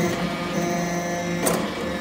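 XB315 hydraulic briquetting press running as it compacts aluminium chips: a steady hum of several fixed tones from its hydraulic drive, with one sharp clack about one and a half seconds in as the press cycle shifts.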